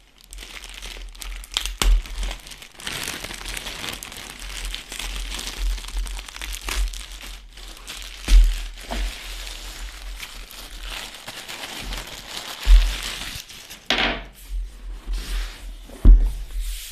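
Clear plastic bag crinkling and rustling as it is worked off a cardboard microphone box, with four louder dull thumps of the box being handled.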